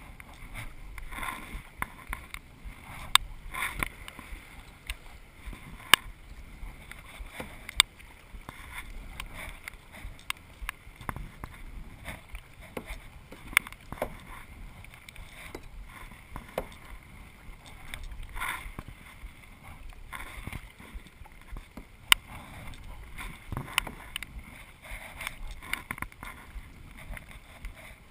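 Kayak being paddled: paddle blades dipping and splashing through the water, with occasional sharp clicks or knocks scattered through.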